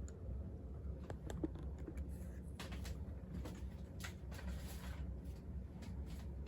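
Hands handling plastic packaging and small diecast toy cars: scattered light clicks and short crinkling rustles, over a steady low electrical hum.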